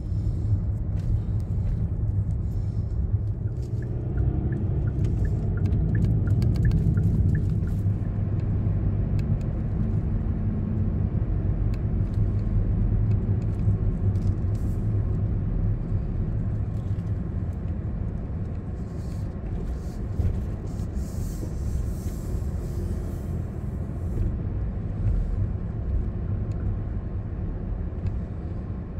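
Car driving, heard from inside the cabin: a steady low engine and road rumble.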